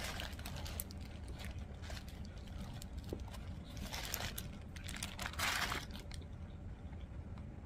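Paper food wrapper crinkling and rustling while a burrito is bitten and chewed: scattered irregular crackles, over a faint steady low hum.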